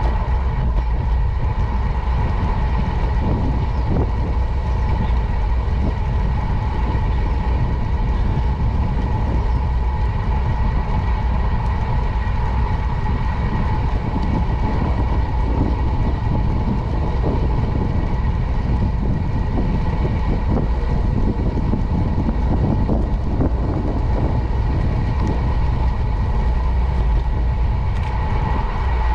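Bicycle rolling along a paved path: a steady low rumble of tyres on asphalt and wind on the microphone, with a constant thin whine over it.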